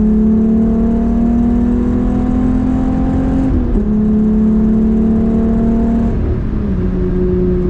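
Volkswagen VR6 engine under way, its note climbing slowly with road speed and dropping twice as it shifts up, about three and a half seconds in and again near six and a half seconds. The owner calls it very rowdy.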